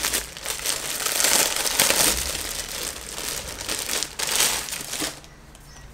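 Thin clear plastic bag crinkling and rustling as it is handled and opened by hand to get at a folded T-shirt inside. The crinkling stops about five seconds in.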